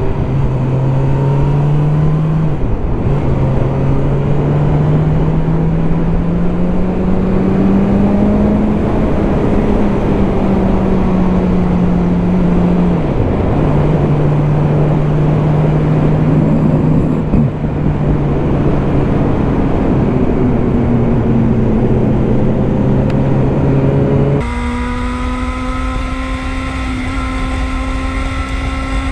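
Motorcycle engine under way, revs climbing in one gear and dropping at two upshifts, with heavy wind noise. Near the end the sound changes abruptly to a steadier, slowly rising engine note with less wind.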